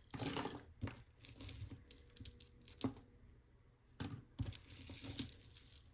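Small metal costume jewelry pieces, earrings and chains, clinking and jingling as they are picked through by hand, in irregular short clusters of clicks and rattles.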